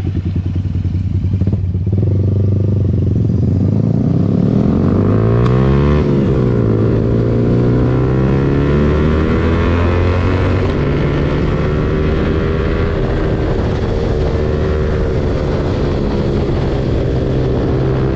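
Motorcycle engine on the move: it accelerates over the first few seconds, then runs at a steady speed, and its note steps up about ten and a half seconds in. Wind rushes over the microphone throughout.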